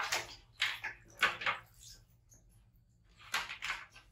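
Water splashing in a plastic washbasin in a few short bursts as baby monkeys are washed by hand.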